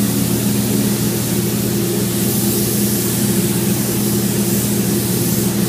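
Steady hiss of compressed air from a paint spray gun over a constant machine hum.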